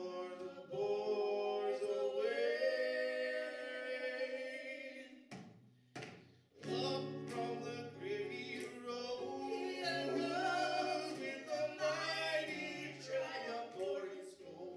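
A woman and a man singing a gospel song with acoustic guitar accompaniment. There is a short break in the singing about five and a half seconds in, and lower notes come in under the melody when it resumes.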